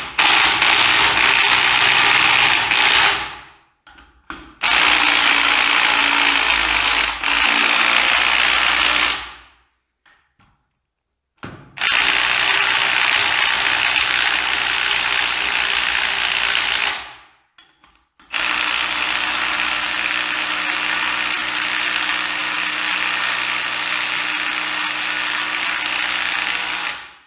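Bosch 18 V cordless impact wrench driving bolts into the threaded jacking holes of a gearbox bearing sleeve, pushing the sleeve with its bearings out of the housing. It runs in four long stretches of a few seconds each, with short pauses between them.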